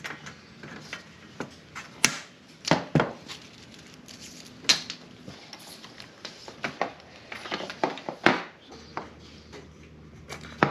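Cable ties being fastened and their tails snipped with side cutters as solar panel wires are bundled along the aluminium panel frame: scattered sharp clicks and snips, the sharpest about two seconds in.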